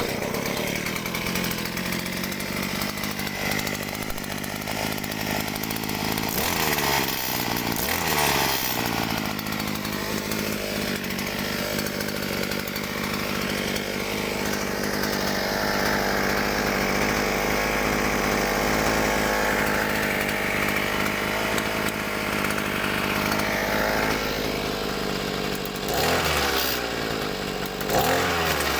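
Small Nikosilen outboard motor running on test, coming in suddenly at full volume. It holds a steady speed, with the throttle revved up and down a few seconds in and again near the end.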